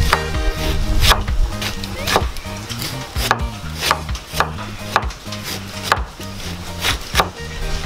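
Cleaver chopping through a banana blossom onto a wooden cutting board, a sharp knock about once a second. Background music runs underneath.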